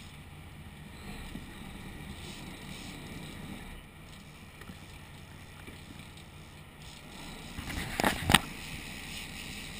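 Boat engine running at idle: a steady low rumble, with wind and sea noise. About eight seconds in, a brief loud rush and two sharp knocks.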